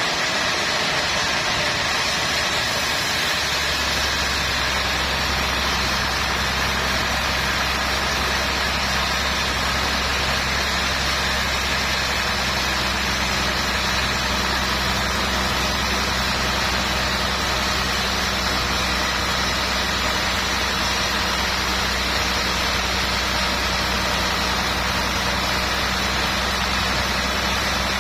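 Sawmill machinery running steadily, with a low engine hum that comes in a few seconds in and then holds steady.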